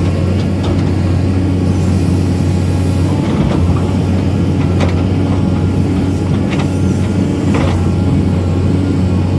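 Excavator's diesel engine running steadily with a deep hum, with a few short knocks and clanks from the machine at work.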